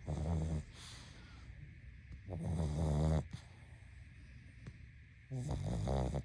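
A sleeping pug snoring: three low, buzzing snores, each under a second long, about every two and a half to three seconds, with quieter breathing between them.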